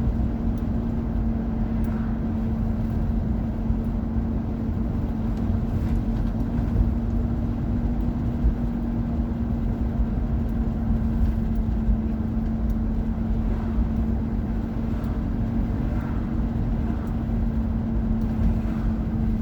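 Car running, heard from inside the cabin: a steady low rumble with a constant hum.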